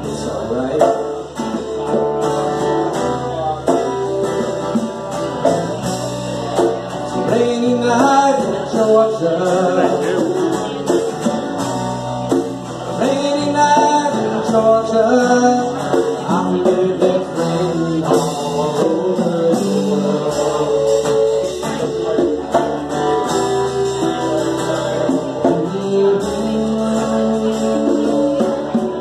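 A live band playing a song on two electric guitars and an electric bass, with a male lead singer.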